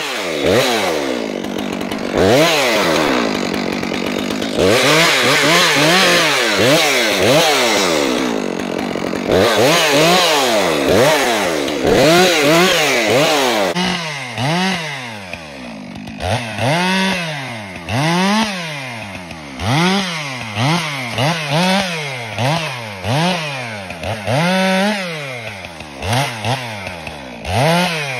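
Two-stroke chainsaw cutting up a felled tree. For the first half it runs at high revs through long cuts. Then it revs up and drops back about once a second in a string of quick short cuts.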